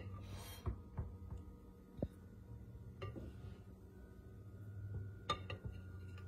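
A metal icing spatula spreading cream cheese frosting on a cake, with a few light clicks and taps against the glass cake plate and frosting bowl, over a steady low hum.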